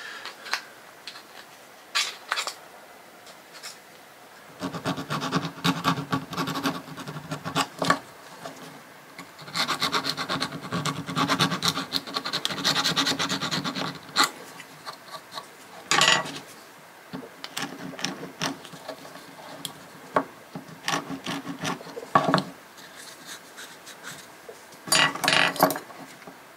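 A small round needle file rasping in quick back-and-forth strokes inside a freshly drilled 4 mm hole, deburring it. The filing comes in two long runs, then a few sharp knocks near the end.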